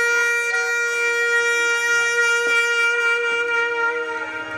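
Clarinet holding one long, steady note, with a lower note joining about three seconds in and the long note stopping near the end.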